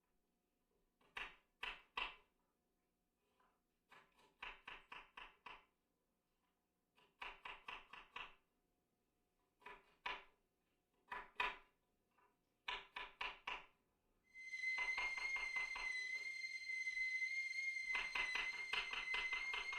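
Short runs of quick, sharp taps, about six to eight a second, broken by pauses. About fourteen seconds in, a steady high whistling tone starts and holds, with the tapping still going under it.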